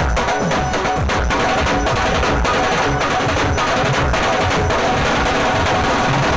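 Dhol-tasha drum ensemble playing loud, continuous, fast procession drumming: big dhol drums beaten with sticks under the sharp cracks of the tasha.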